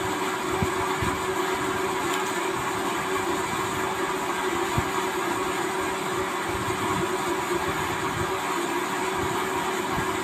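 Electric grinder running steadily as it grinds dried red chillies, a constant motor drone that holds one pitch throughout.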